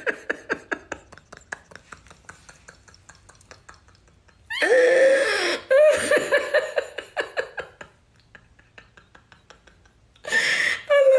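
A woman laughing in quick breathy pulses that die away. The laughter is broken by two drawn-out voiced sounds, one about halfway through and one near the end.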